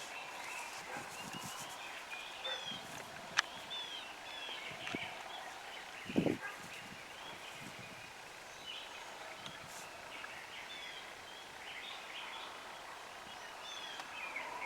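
Faint outdoor chorus of small birds chirping and singing in short slurred notes. There is one sharp click about three seconds in and a short low thump around six seconds in.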